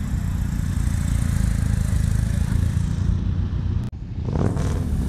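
Several motorcycle engines idling and pulling away at low speed, a steady low rumble. The sound cuts out for an instant about four seconds in, then an engine's pitch rises as a bike moves off.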